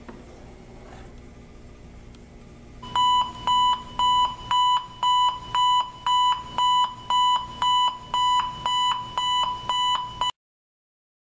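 Jensen JCR-295 clock radio's alarm beeping, a high electronic beep about twice a second. It starts about three seconds in and cuts off suddenly near the end.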